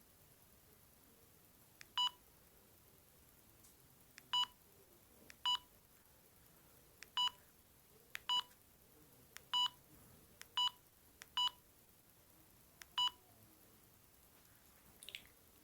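Panasonic EB-GD93 mobile phone keypad beeps as its menu is scrolled through: nine short, single-pitched beeps at irregular intervals, each set off by a faint key click.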